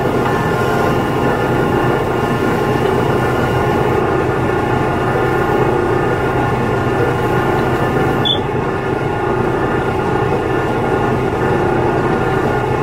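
A fishing boat's engine running with a steady, unbroken drone of many tones.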